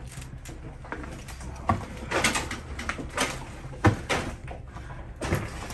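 Footsteps on loose wooden boards and corrugated metal sheeting: a string of irregular knocks and scrapes, the sharpest near the middle, in a small echoing tunnel.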